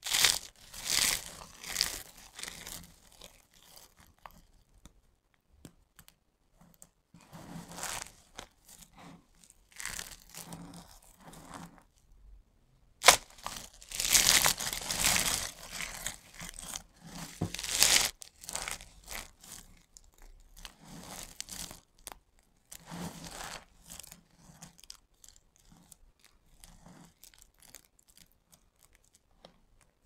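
Dry, brittle soap being broken and crushed by hand: irregular crisp crackling and crunching in bursts. There is one sharp snap about 13 seconds in, and the crunching is loudest and densest just after it, then thins out towards the end.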